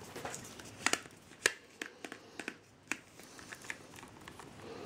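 About ten sharp, irregularly spaced clicks and taps, the loudest about a second and a half in.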